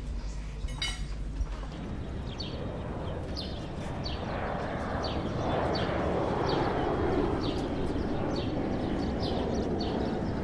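Seafront ambience: a steady rush of wind and water noise that swells about four seconds in, with birds chirping briefly about twice a second. A low room hum with a couple of light clicks comes before the cut to this.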